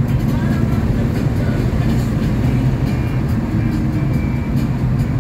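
Car engine running steadily at track speed, heard from inside the car, with a nearly constant pitch and road and wind noise around it.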